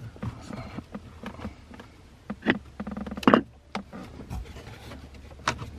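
Scattered clicks and knocks of the push-start button, its wiring connectors and the surrounding plastic dash trim being handled and fitted, the loudest about three seconds in, over a steady low hum.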